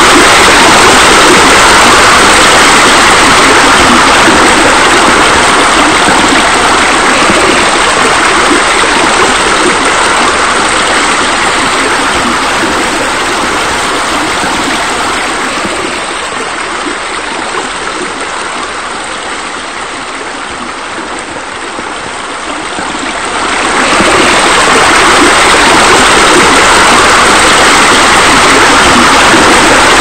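Steady rushing water of a waterfall spilling into a pool. It fades down through the middle and swells back up suddenly about three-quarters of the way through.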